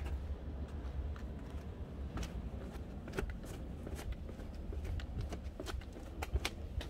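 Scattered light clicks and rustles over a steady low rumble, typical of a handheld camera being moved about.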